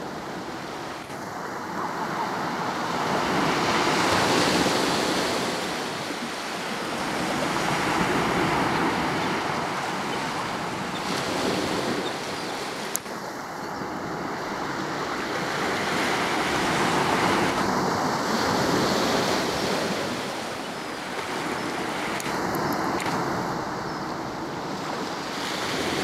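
Small waves breaking on a sandy beach, the surf swelling and fading every few seconds. A single sharp click about halfway through.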